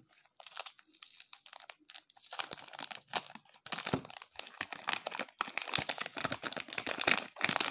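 Thin clear plastic wrapper crinkling and rustling as it is peeled off a new 4x4 speed cube. It is sparse at first and near-continuous from about two seconds in.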